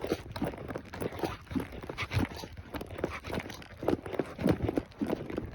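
Horse hooves clip-clopping on the ground at a walk, an even run of dull hoof strikes, several a second.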